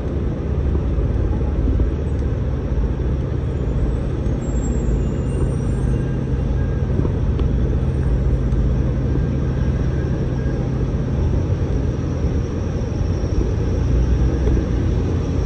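Steady low rumble of city street traffic, with a constant low engine-like hum underneath.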